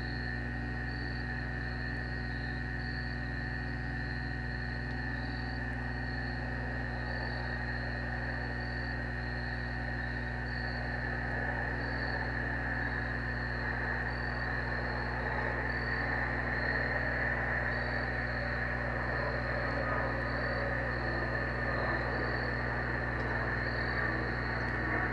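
Crickets chirping in an even, repeating rhythm, with a steady band of insect song that grows a little louder about halfway through. A constant low hum runs underneath.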